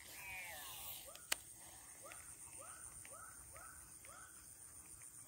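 Abu Garcia Black Max baitcasting reel whining on a cast, its pitch falling as the spool slows, then a sharp click about a second in. After that an animal calls in a series of short rising-and-falling notes about twice a second, over a steady high insect hum.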